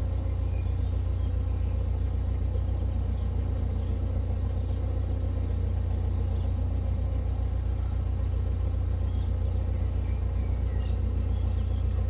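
Narrowboat engine running steadily under way, a continuous low drone, with a few faint bird chirps above it.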